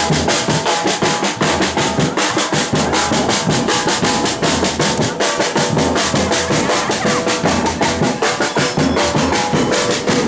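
Samba percussion band drumming a fast, dense, steady rhythm, with a large surdo-style bass drum struck with a mallet.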